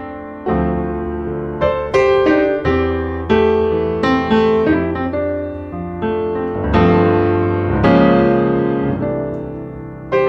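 Background piano music: struck notes and chords at an unhurried pace, each note ringing out and fading.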